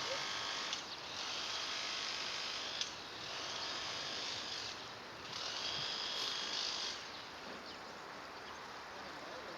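A small electric motor whirring in three stretches of about two seconds each, with short breaks between them.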